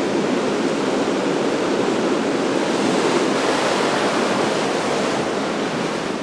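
Ocean surf and foamy whitewater washing in over rocks: a steady rushing noise.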